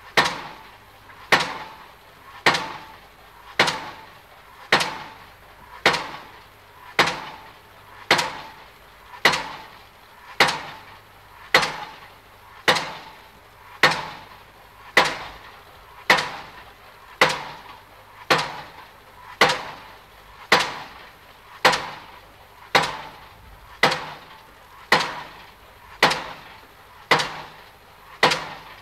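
A sharp knock repeated at a steady, even pace, about one every 1.1 seconds, each with a short ring-out.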